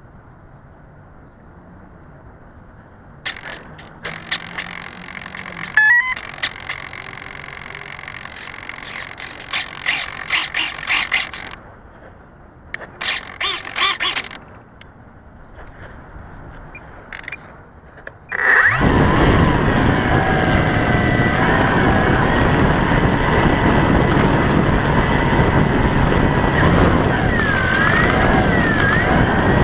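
E-flite Timber RC plane's electric motor and propeller, heard close up from a camera on the plane's belly: after a quiet stretch broken by clicks and short bursts, the motor spins up suddenly about two-thirds of the way in and runs steadily with a high whine, its pitch dipping and rising briefly near the end.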